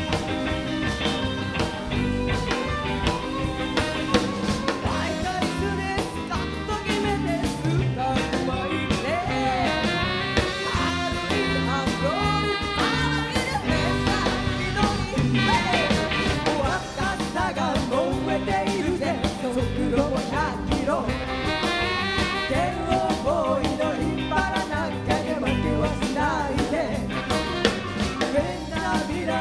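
Live rock-and-roll band playing an upbeat twist number with electric guitars, keyboard and drum kit, and women singing lead at microphones over it.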